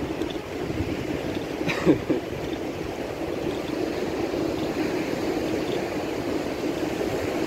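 Ocean surf washing steadily on the beach, with wind on the microphone and a short sharp bump about two seconds in.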